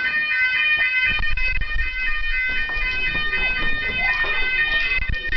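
Building fire alarm sounding continuously: a steady high tone with several overtones that does not change in pitch. A low rumble runs underneath from about a second in.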